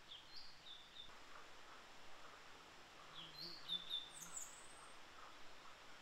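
Male blue-and-white flycatcher singing: two short phrases of clear whistled notes about three seconds apart, the second ending in higher, thinner notes.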